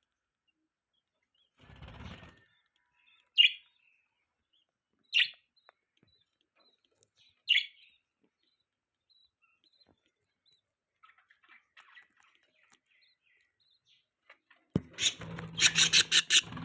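Pet budgerigars chirping: three short, sharp chirps a couple of seconds apart, then near the end a loud burst of rapid chattering calls.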